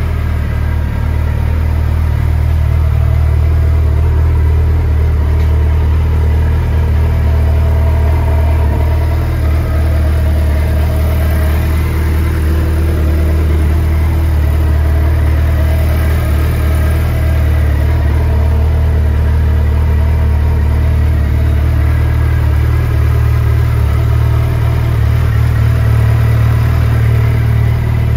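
Suzuki Hayabusa's 1340 cc inline-four engine idling steadily through aftermarket Yoshimura exhausts.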